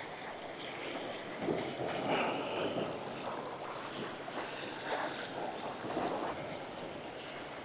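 Ocean surf washing over the rocks, with wind on the microphone; the wash swells louder twice.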